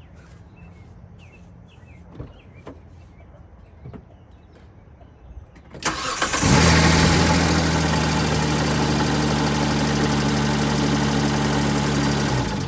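A Hyundai car engine with a flat battery, jump-started from a portable lithium jump-starter pack in boost mode, cranks briefly about six seconds in, catches, revs up and then settles into a steady idle. It stops abruptly just before the end. The engine starting shows the jump start has worked.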